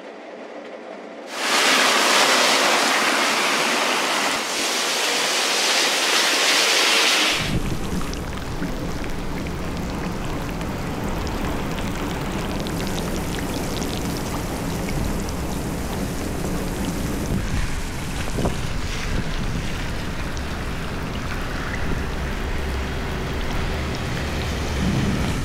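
Torrential rain. A loud hiss of pouring rain starts about a second in. About a third of the way through it gives way to rain pelting a flooded road, with a low rumble underneath.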